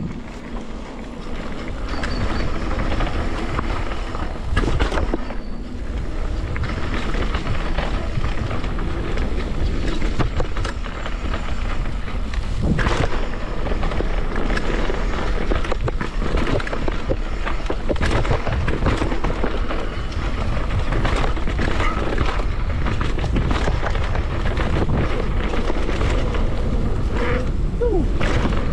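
Downhill mountain bike ridden fast down a dirt trail: a steady rush of wind on the microphone and tyre noise, with frequent rattles and knocks from the bike over bumps.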